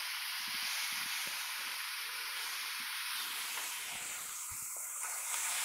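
Smashburger patties of ground beef sizzling steadily on a very hot Blackstone flat-top griddle as they are pressed flat with two spatulas.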